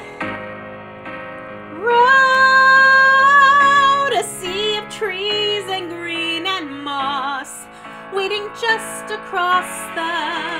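A woman singing a slow song over a karaoke instrumental backing track. She slides up into one long held note about two seconds in, the loudest part, then sings shorter phrases with vibrato.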